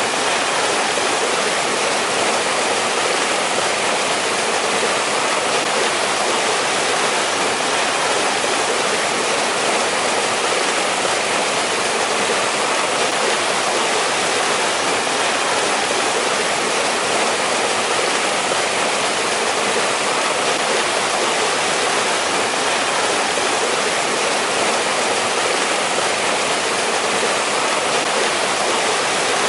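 Mountain valley stream in winter, water rushing and splashing over rocks in a steady, unbroken hiss.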